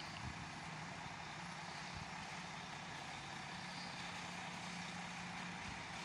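Mercedes-Benz O350 Tourismo coach's diesel engine running steadily, a low even hum under a constant hiss.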